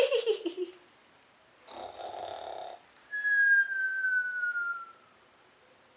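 A person imitating a dog's snore: a short rasping snore drawn in with a low flutter, then a whistle on the out-breath that slides slowly down in pitch for about two seconds. A falling shout trails off just as it begins.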